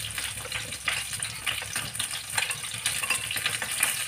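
Paneer cubes shallow-frying in oil, a steady crackling sizzle, with a steel spoon stirring a cornflour slurry in a ceramic bowl.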